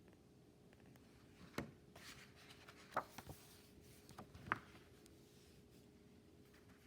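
A picture book being handled in a quiet room: a faint rustle of paper and three light taps, about one and a half, three and four and a half seconds in.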